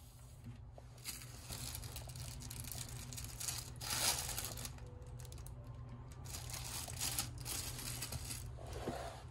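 Clear plastic wrapping on a pair of disposable hotel slippers crinkling as they are handled, in irregular rustles loudest about four seconds in.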